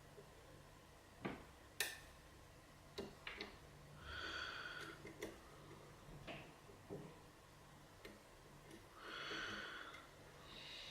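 Faint, irregular clicks and ticks of a lock pick working the pins of a 6-pin KIK cylinder lock held under light tension. Two breaths through the nose come about four and nine seconds in.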